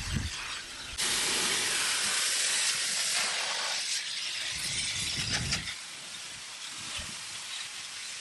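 Prolux wet/dry garage vac in blower mode, air hissing out of the nozzle tool as it blows dust out of the dashboard crevices. The blast comes on suddenly about a second in and eases off after about four seconds.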